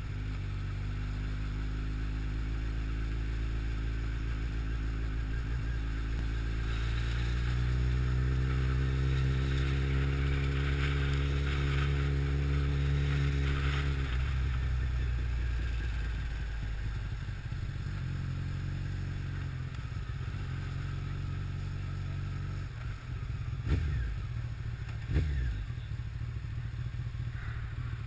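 Honda CBR1100XX Blackbird's inline-four engine running under way. Its note rises and holds, then drops about halfway through as the throttle closes and settles lower. Two sharp thumps come near the end.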